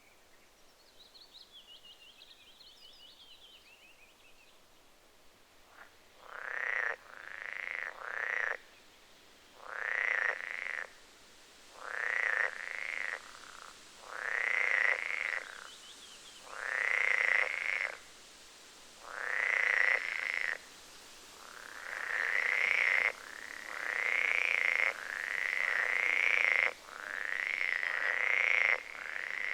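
An animal calling over and over from about six seconds in, each call half a second to a second long and rising in pitch, often given in twos or threes; faint high chirps come before the calls begin.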